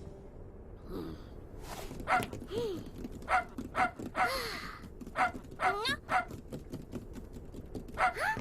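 A string of short, squeaky cartoon-character vocal sounds, yips and chirps that bend up and down in pitch, about two a second from about two seconds in.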